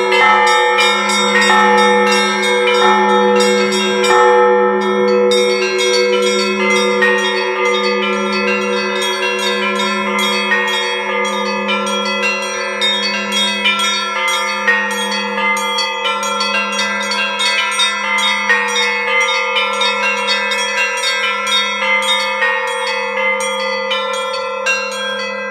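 Russian Orthodox church bells in a full peal (zvon): a low bell struck at a slow, even pace, with rapid, continuous patterns on many smaller, higher-pitched bells over it.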